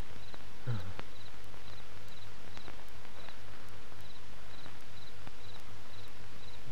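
A cricket chirping steadily, short high chirps about twice a second, over a steady low hum.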